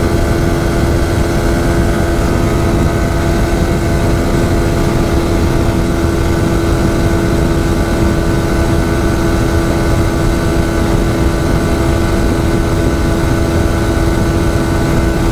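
Yamaha R15 V4's single-cylinder engine held at steady high revs in sixth gear near top speed, one constant engine note that does not rise or fall. Heavy wind rush on the microphone runs underneath.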